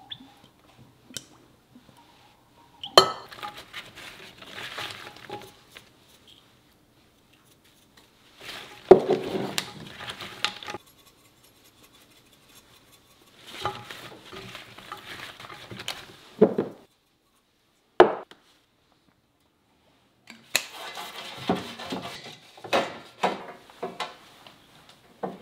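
Sweet potato slices and a ceramic baking dish clinking and rustling in several short bouts of handling. Near the end comes a run of light clicks and knocks as slices are laid one by one on a metal oven pan.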